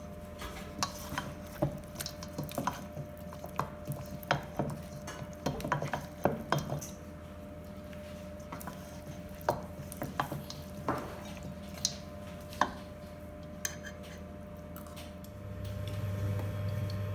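Kitchen utensils and dishes clinking and knocking against each other in irregular handling, over a steady low hum. A louder low hum starts about fifteen seconds in.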